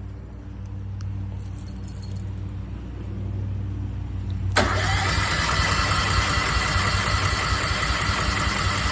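A low hum, then about four and a half seconds in the electric starter of a Westinghouse 20,000-watt portable generator suddenly starts cranking the engine, steadily and rapidly, without it catching. The engine is starved of fuel, which the owner first puts down to a stuck fuel solenoid.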